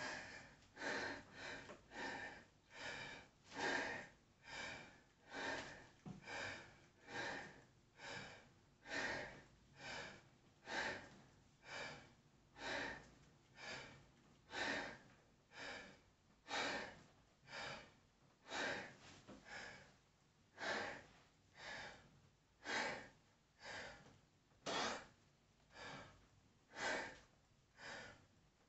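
A man breathing hard and rhythmically through a set of dumbbell rows: short, sharp breaths, about one a second, faint.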